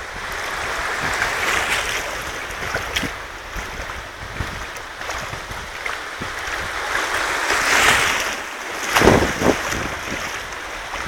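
Shallow surf washing over sand at the water's edge, with wind buffeting the microphone. The wash swells twice, about two seconds in and more loudly about eight seconds in, and a burst of wind rumble follows just after.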